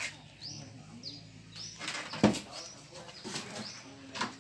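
Short, high, rising chirps of a bird, repeating about every half second. Over them are rustling and a single sharp knock a little past two seconds in.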